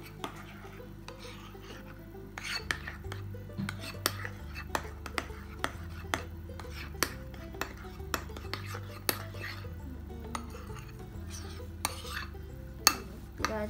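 Metal spoon stirring a thick shaving-foam and glue slime mixture in a glass bowl, with irregular clinks and scrapes against the glass.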